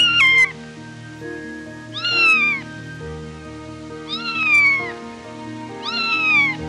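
Kitten meowing four times, about two seconds apart, each call short and falling in pitch, over soft background piano music.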